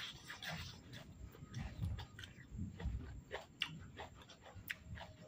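A man chewing and smacking his lips while eating instant noodles, with irregular small mouth clicks.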